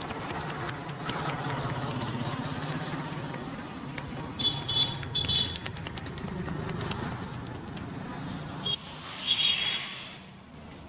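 Street traffic running past, with several short, high-pitched vehicle horn toots about four seconds in and again near the end.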